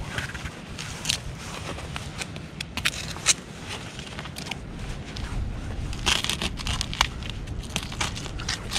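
Digging through soil packed with broken glass and pottery shards: irregular scrapes and sharp clinks, busiest about six to seven seconds in.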